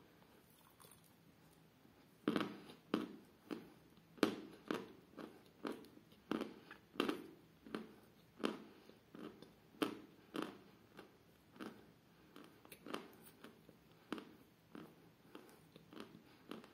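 A piece of Damsky Kapriz edible chalk being chewed close to the microphone. Sharp, ringing crunches begin about two seconds in and come about twice a second. They are loudest at first and grow softer as the chalk is ground down.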